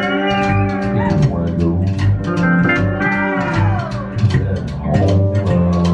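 Honky-tonk country band playing live: electric guitar, upright bass and drums keeping a steady beat, with pedal steel guitar sliding and bending between notes.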